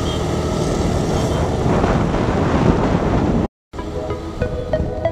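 Motor scooter riding along, its engine running under heavy wind noise on the microphone; the sound cuts off abruptly about three and a half seconds in. After a short silent gap, background music with short ringing notes begins.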